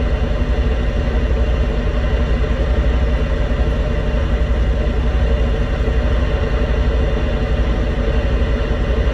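Semi truck's diesel engine running steadily at low revs, a low rumble heard from inside the cab.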